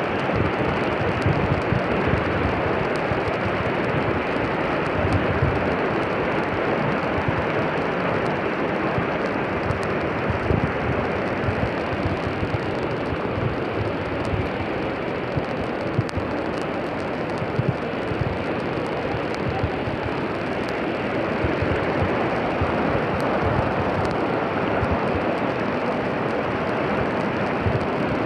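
Steady rushing of floodwater pouring along a flooded street, with wind gusting on the microphone.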